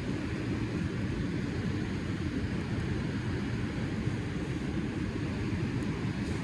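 Steady low rumbling of wind buffeting the microphone.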